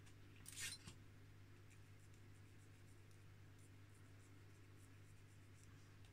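Near silence with a steady low hum. About half a second in comes one brief, soft scrape as small plastic model-kit parts are handled, followed by a few faint ticks.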